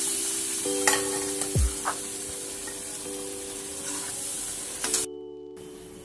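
Sambar sizzling in an iron kadai on a gas flame with a steady hiss, stirred with a metal spoon that clicks against the pan a few times in the first two seconds. The sound drops out briefly about five seconds in.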